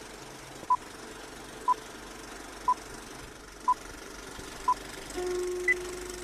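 Film countdown leader beeps: a short, identical electronic beep exactly once a second, over a steady film hiss. A single higher beep comes near the end, shortly after a low steady tone sets in.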